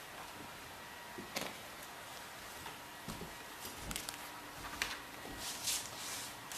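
Kittens scrambling and playing on magazines and a wooden floor: scattered light taps and knocks, with rustling of paper that is loudest near the end, over a steady hiss.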